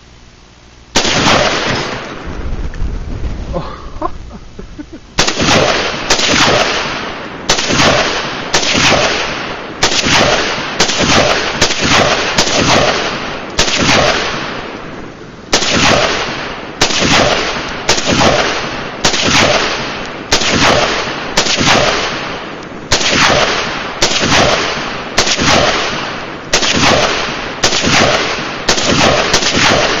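Rifle shots fired one at a time at a steady pace of about one a second, after a single opening shot and a pause of about four seconds; each shot is loud and trails off slowly.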